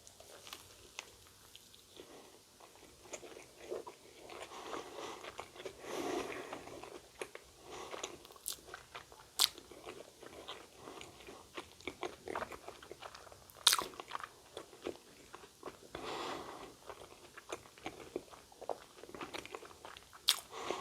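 Close-up chewing and biting of a sweet potato Korean corndog: wet mouth sounds broken by sharp crunches of the fried coating, the loudest three spread through.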